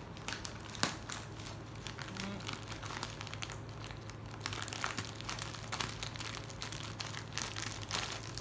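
Thin plastic bag crinkling and rustling as it is cut open with scissors, with many short sharp snips and crackles, the sharpest just under a second in. A steady low hum runs underneath.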